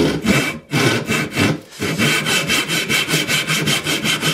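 Handsaw cutting across a wooden board to start a tenon shoulder, its teeth riding in a chisel-pared notch at the knife line. A few slow strokes with short pauses, then quick, even back-and-forth strokes from about two seconds in.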